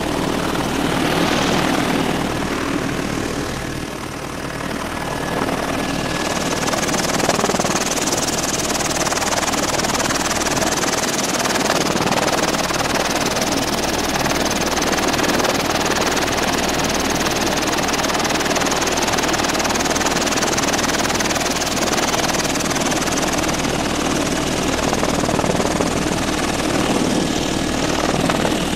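Helicopter in flight heard from inside the cabin: loud, steady rotor and engine noise, with a high hiss that strengthens about six seconds in.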